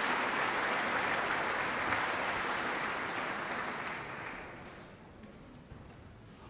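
Large concert-hall audience applauding, the clapping dying away over the second half.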